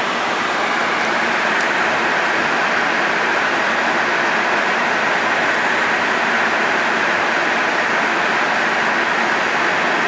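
Steady rushing noise of air streaming past an airliner's cockpit at cruise, heard from inside the flight deck.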